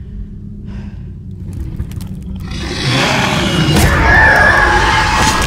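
Horror-film soundtrack: a low rumble, then from about three seconds in a loud, harsh swell with a high tone held through it.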